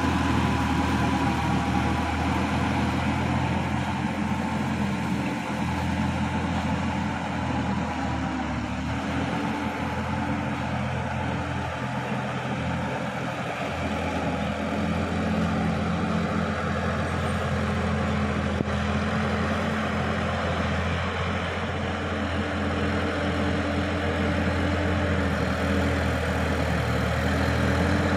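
Sonalika DI-50 RX tractor's diesel engine running steadily under load as it drives a rear rotary tiller through a flooded paddy. The sound eases slightly around the middle, then returns to full level as the tractor works back toward the microphone.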